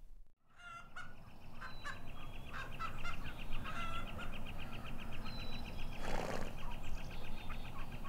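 Birds calling outdoors in the morning: a fast, even trill keeps repeating for several seconds among scattered chirps, with a brief rush of noise about six seconds in.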